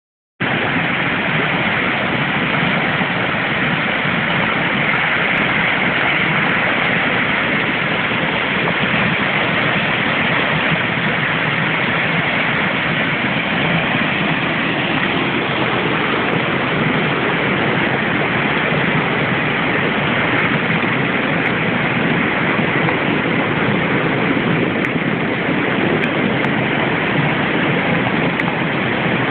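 Muddy floodwater rushing in a torrent and cascading over stone walls: a loud, steady rush of water that holds without a break.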